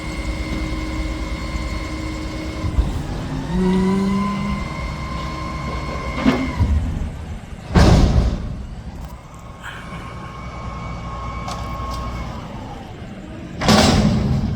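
Mack garbage truck with a McNeilus front-loader body working: the engine runs under a steady high whine that glides up about four seconds in. There is a brief low tone just before that, and two loud sudden bursts of noise, one about eight seconds in and one near the end.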